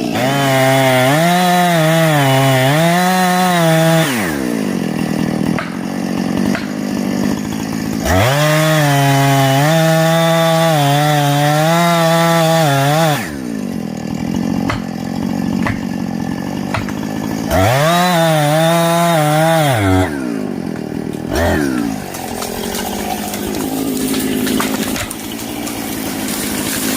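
Two-stroke chainsaw making a felling cut, revved up to full throttle three times for several seconds each, the pitch rising as it speeds up and dropping back to a lower, rougher running sound between cuts.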